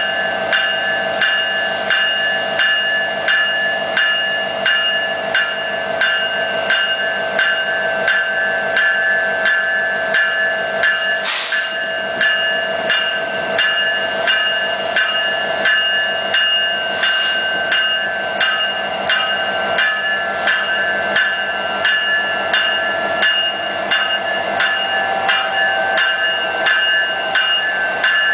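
Union Pacific diesel locomotive's bell ringing steadily, just under two strikes a second, as the locomotive rolls slowly past, with a few short hisses, the clearest about eleven seconds in.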